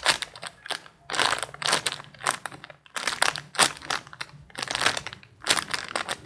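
Plastic packaging around a still-sealed squishy toy crinkling in irregular bursts as it is handled.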